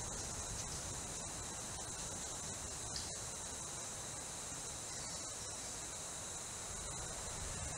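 Steady, high-pitched insect chorus of tropical forest insects, with a thin steady whine higher up and a low background rumble underneath.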